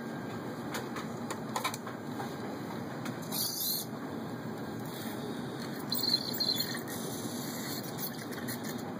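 Small hobby servo motors of a robotic arm whirring in short spurts as the arm swings and its gripper moves a plastic cup, with a few light clicks, over a steady background hum.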